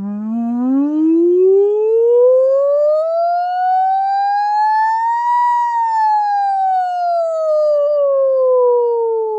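A singer's vocal siren warm-up: one unbroken sung note gliding smoothly up from low in the voice to a high peak about halfway through, then sliding back down.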